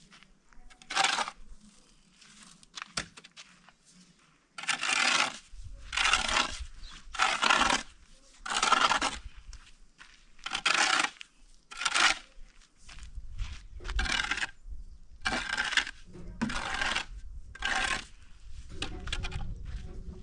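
A steel shovel scraping and digging into a pile of sand and gravel, one shovelful after another, about one stroke a second after a slower start, while aggregate is shovelled for a hand-mixed batch of cement.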